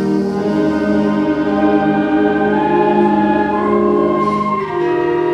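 Junior high concert band of woodwinds and brass playing slow, sustained chords, moving to a new chord about four and a half seconds in.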